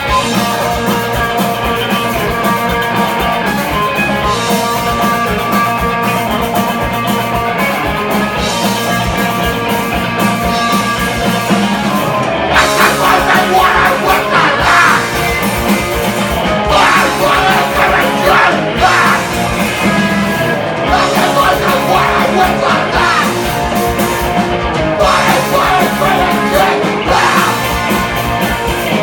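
Loud punk rock played live by a band, with shouted vocals coming in and out from about twelve seconds in.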